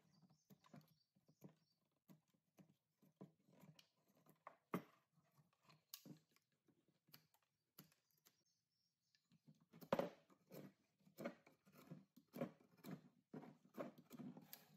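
A hand blade shaving curls off a wooden hammer handle: quiet, irregular scraping strokes, a few a second, with a short pause about nine seconds in and then coming faster.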